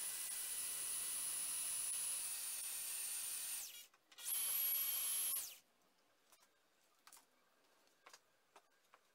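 Cordless drill running at speed, boring a hole through a thin metal bar held in a vise, with a steady high whine. It runs for about three and a half seconds, stops, then runs again briefly for about a second, followed by a few faint clicks and knocks.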